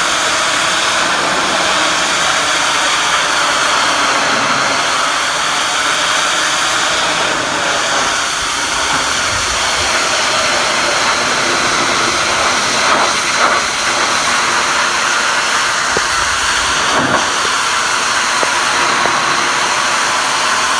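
Pressure washer jet spraying water onto brick, a loud, steady hiss.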